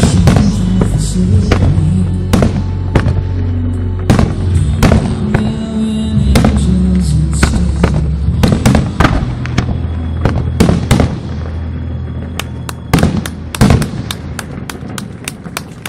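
Aerial firework shells bursting one after another in many sharp bangs, over loud music with a deep, sustained bass. A tight cluster of bangs comes near the end.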